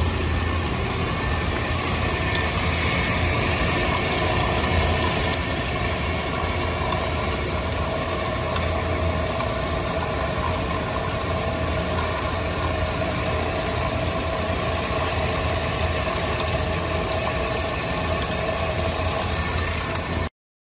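FCS16 Rip-R-Stripper walk-behind floor scraper running steadily as its blade peels a layer of floor covering off concrete and curls it up: a constant machine hum with scraping hiss. It stops abruptly near the end.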